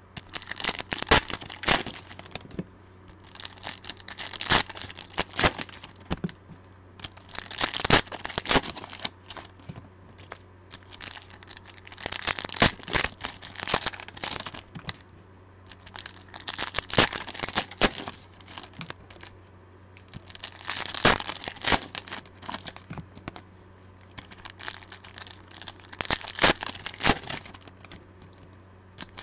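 Foil trading-card packs of 2020 Panini Legacy Football being torn open and crinkled by hand, in repeated bouts of crinkling and tearing a few seconds apart.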